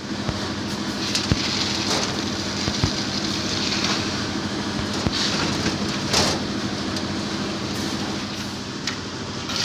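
Steady running of engine-driven machinery during a concrete roof-slab pour, with a few sharp knocks scattered through it.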